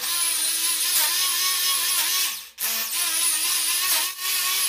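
Corded electric drill with a 6 mm bit boring into a ceramic-tiled floor, its high whine wavering slightly under load. It stops briefly about halfway through and starts again.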